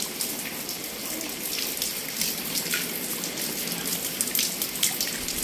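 Rain falling steadily, with many separate drops ticking on wet concrete and leaves.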